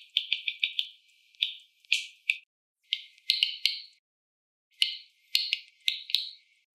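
Ultrasonic clicks from stressed tomato and grapevine plants, shifted down into human hearing: an irregular run of sharp pops like popcorn popping, in quick clusters with short pauses between.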